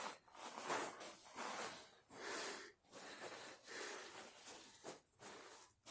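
A person breathing hard close to the microphone, a quick run of short noisy breaths, about one to two a second.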